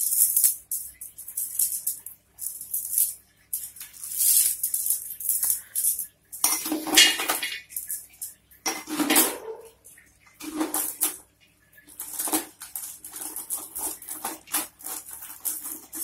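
Strings of beads clicking and rattling against each other as they are handled and wrapped around a plastic bottle, in irregular bursts with short pauses.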